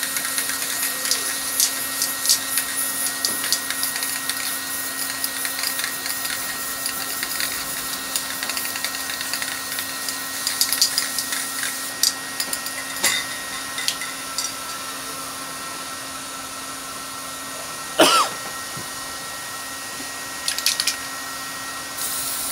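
Steady hum under scattered light ticks and scrapes as hands work a spray-painted canvas, with a short sliding squeak about 18 seconds in. Just before the end an aerosol spray can starts hissing.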